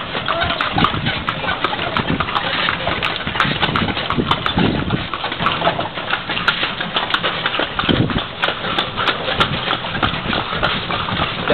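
Horse's hooves clip-clopping on a paved street, with the running noise of the horse-drawn carriage it pulls, heard from aboard the carriage.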